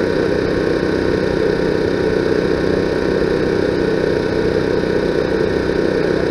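Steady, unchanging engine-like drone, loudest in the low-middle range, with a few constant thin tones above it.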